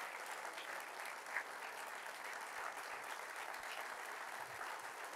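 Lecture-hall audience applauding steadily, a fairly quiet, even clapping.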